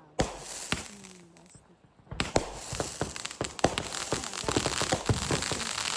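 Fireworks: a bang just after the start, then after a short lull a dense, rain-like crackling of many small rapid pops from crackle-effect shells.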